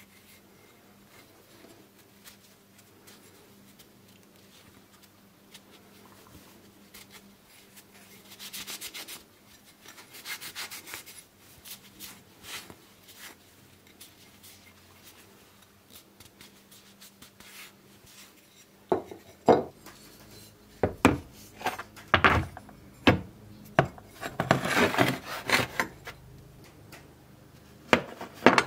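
Rusty metal plane parts being handled: faint rubbing at first, then, about two-thirds of the way in, a run of sharp knocks and clatter with a stretch of scraping.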